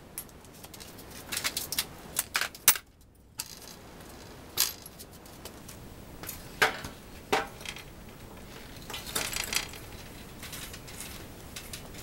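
Sharp metallic clinks and knocks from bicycle parts and tools being handled on the rear wheel and kickstand, coming in scattered groups.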